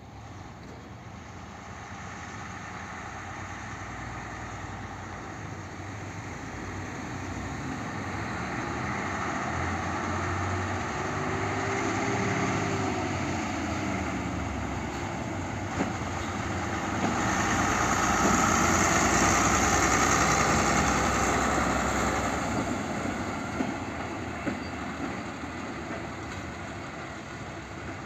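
WM-15A track maintenance trolley's diesel engine running as it drives past towing a ballast hopper wagon. The sound builds slowly to its loudest about two-thirds of the way in and then fades, with a few sharp clicks near the loudest part.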